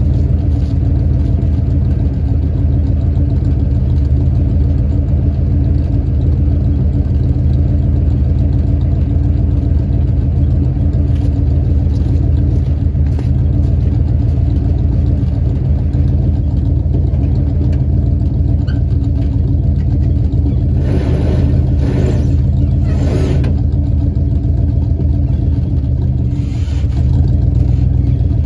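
Engine of a 1968 Dodge D300 tow truck running steadily, with several short bursts of noise over it near the end.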